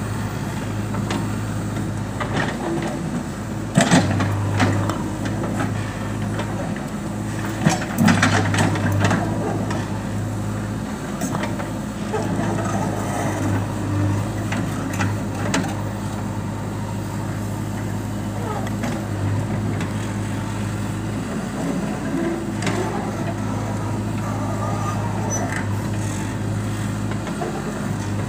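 JCB 3DX backhoe loader's diesel engine running steadily at working revs while the hydraulic arm digs. Sharp knocks about 4 and 8 seconds in, from the steel bucket striking soil and debris, are the loudest sounds.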